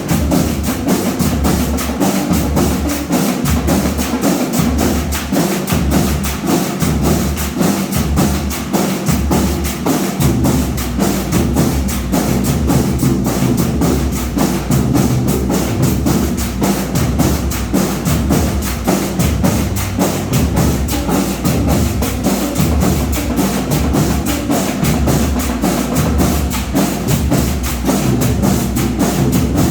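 Marching band playing: drums and percussion keep up a fast, steady run of strokes, with low pitched notes shifting beneath them.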